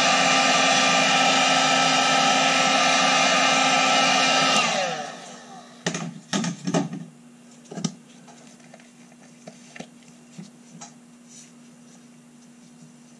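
An electric heat gun runs steadily with a fan whine, warming steel revolver parts before cold bluing. About four and a half seconds in it is switched off and winds down. A few knocks and clatters follow as things are handled on the bench.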